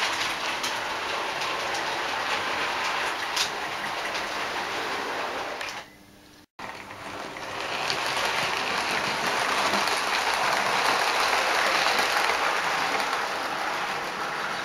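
Model railway trains running on the track, a steady mechanical running noise with a few sharp clicks. After a cut about six seconds in, a model train passes close by, the noise swelling and then easing off.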